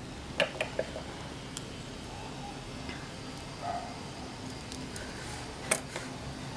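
Small steel scissors snipping a crochet cotton thread: a few light clicks from the blades about half a second in, then one sharp snip near the end.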